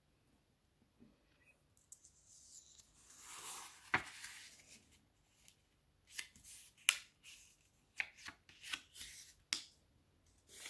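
Square sheet of origami paper being folded in half by hand: a swell of rustling about three to four seconds in with one sharp snap, then a run of short crinkles and clicks as the fold is pressed and creased flat.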